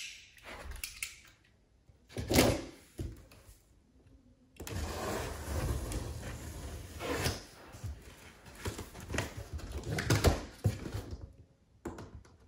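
Utility knife cutting through packing tape on a large cardboard box: a few knocks and scrapes on the cardboard, then from about five seconds in a long scratchy tearing noise as the blade is drawn along the seams in strokes.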